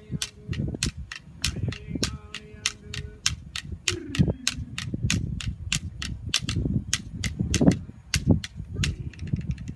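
A man singing an Aboriginal welcome song in a low voice, with held and falling notes, while sharp clapstick-like beats keep an even time of about four a second. The beating stops shortly before the end.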